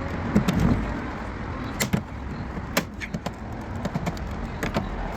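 Plastic fender panel and its retaining clips being pried and handled: a handful of sharp, irregularly spaced clicks and knocks over a steady low rumble.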